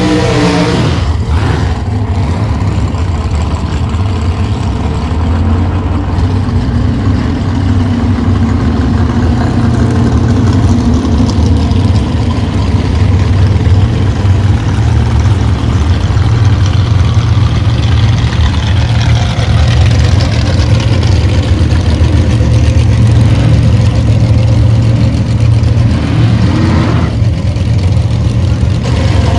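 Drag race cars' engines idling loudly at the starting line, a deep, steady, pulsing rumble that grows a little louder after the first several seconds.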